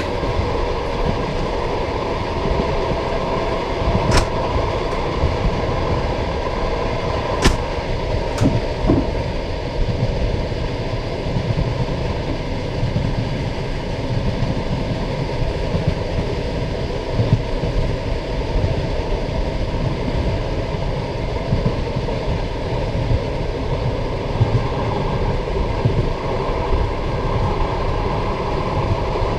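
Passenger railway carriage running along the track: a steady, deep rumble and knocking of the wheels on the rails. Three sharp clicks come from the running gear at about four, seven and a half, and eight and a half seconds in.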